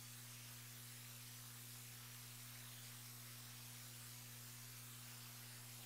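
Near silence: a faint steady low hum with a light hiss.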